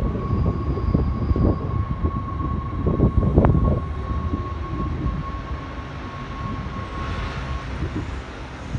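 Six-car NS ICMm (Koploper) electric multiple unit train running on the track: a low rumble with a steady high whine that stops near the end, and a brief rising squeal about three and a half seconds in.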